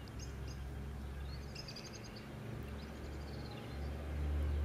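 Outdoor background: a few faint bird chirps over a steady low rumble that grows louder near the end.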